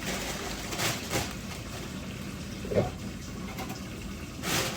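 A few light knocks and handling clicks over a steady low hum.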